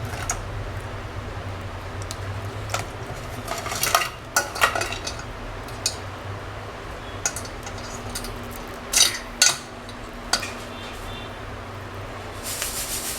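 Crab legs being snapped and cracked off by hand: a scattered series of sharp cracks and clicks, loudest in a pair about nine seconds in.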